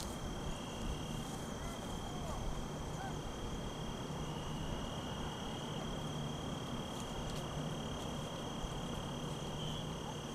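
Quiet outdoor background: a steady high-pitched tone over a low hiss, with a few faint chirps in the first few seconds.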